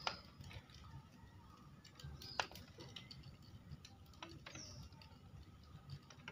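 Faint taps and small splashes as whole eggs are lowered one at a time into water in a clay pot, the sharpest tap about two and a half seconds in. A bird gives a short falling call near the end.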